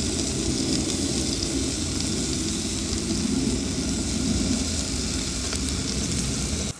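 Squirrel meat coated in barbecue sauce sizzling on a hot grill: a steady crackling hiss over a low rumble, cutting off suddenly near the end.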